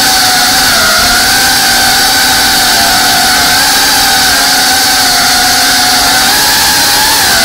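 FPV quadcopter's brushless motors and propellers whining steadily in flight, heard from the drone's own camera. The pitch wavers, dipping briefly about a second in and again near the end, over a steady hiss.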